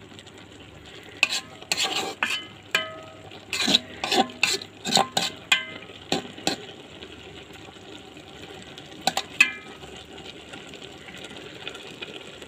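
A spatula stirring taro stolons in a pan over the heat, knocking and scraping against the pan in a run of sharp ringing clinks between about one and six and a half seconds in, with two more near nine seconds. A steady low sizzle of the cooking runs underneath.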